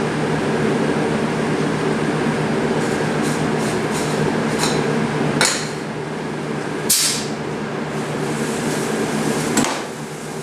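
Shop air compressor running steadily with a humming drone, while a spray gun laying down primer gives several short, sharp hisses of air.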